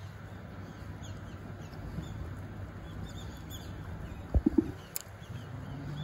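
Outdoor ambience: a steady low rumble with faint, scattered high bird chirps. About four and a half seconds in, a sharp knock is followed by two short low tones, and a thin click comes shortly after.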